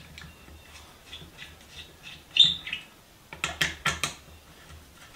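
A screwdriver turning a Phillips screw in the metal end plate of an old wooden level: small clicks and scrapes as it turns, a short squeak of the screw about two and a half seconds in, and a quick run of sharp clicks near the end.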